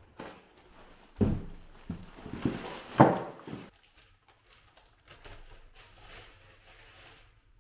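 Shopping bags rustling and groceries knocking as a bag is unpacked into a refrigerator: a few thumps in the first seconds, the loudest about three seconds in, then quieter bag rustling.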